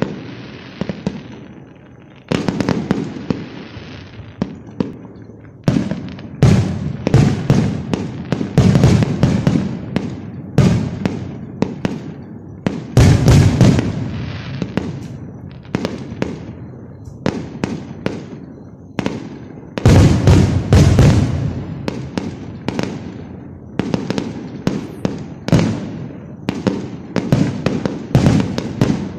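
Fireworks going off in a steady run of sharp, irregular bangs, with dense clusters of rapid bursts several times over.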